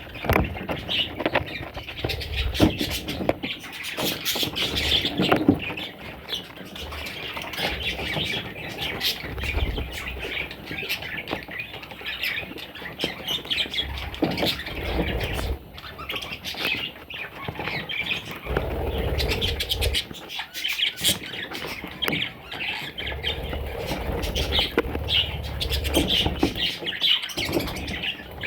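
Pet budgerigars chattering and squawking continuously, with scattered clicks and low thumps among the calls.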